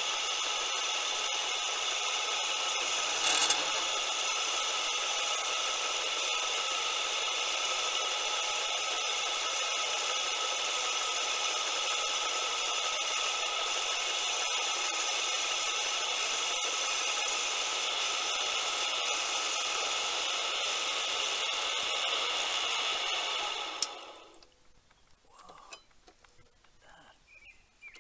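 Homemade mini metal lathe driven by a 24 V motor, running with a steady whine while the tool bit turns down a piece of aluminum stock, cutting smoothly; a brief louder scrape about three seconds in. The motor stops about 24 seconds in, leaving only faint handling sounds.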